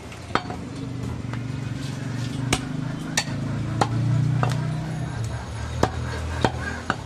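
A butcher's cleaver chopping goat meat and bone on a wooden log chopping block: about eight sharp, unevenly spaced chops. A steady low hum runs under them and swells about halfway through.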